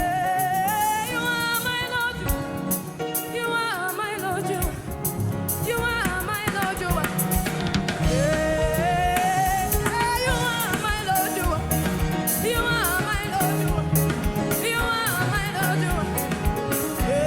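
Live gospel worship music: a lead singer's voice gliding over a band with drum kit and bass.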